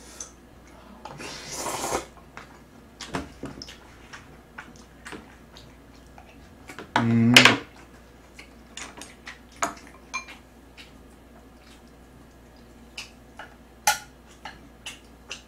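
Eating sounds: chopsticks clicking against dishes and a scatter of small mouth clicks from chewing jjajang noodles, with a noisy slurp about a second in. About seven seconds in comes a short hummed voice sound, the loudest moment.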